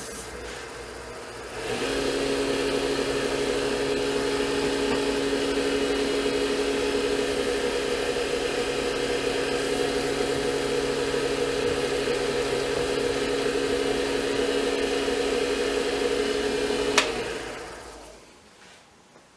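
Wood lathe motor running with a steady whir, stepping up in level about two seconds in. It is switched off with a click near the end and spins down.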